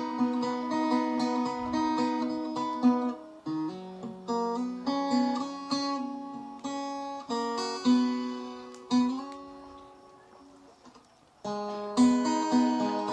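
Acoustic guitar music, fingerpicked and strummed chords. It fades almost to quiet near the end, then the playing comes back in loudly.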